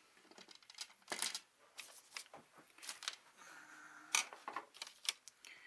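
Irregular sharp clicks and snips of small hand tools and parts being handled while wiring a wall switch, about a dozen in all, the loudest about four seconds in.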